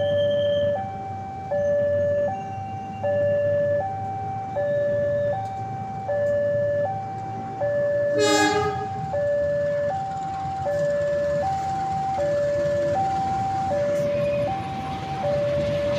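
Level-crossing warning signal sounding a steady two-tone alarm, high then low, each tone lasting under a second. About 8 s in, a diesel locomotive gives one short horn blast. The rumble of the passing passenger train grows louder after that.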